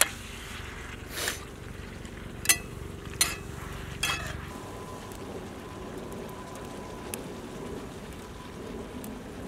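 Food sizzling in a cast-iron skillet over a campfire as it is stirred, with a few sharp taps of the utensil against the pan in the first half.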